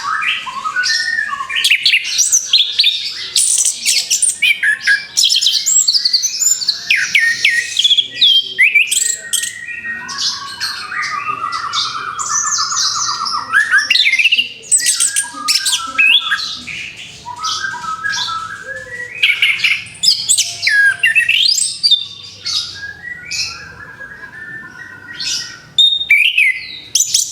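Orange-headed thrush singing a long, varied song of rapid whistles, chirps and squawky notes, with a fast buzzy trill about twelve seconds in.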